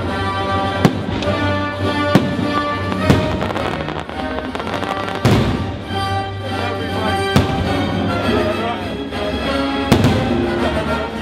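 Aerial fireworks going off in about six sharp bangs at uneven intervals over loud show music played through the park's speakers.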